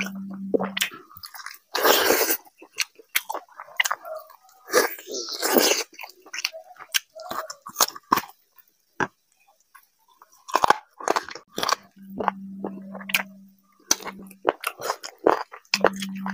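Close-miked eating: a man chewing and biting chicken curry and rice with wet mouth smacks and clicks, and two louder, longer noisy bursts about 2 and 5 seconds in. A low steady hum comes in briefly at the start, again near the end, and once more at the very end.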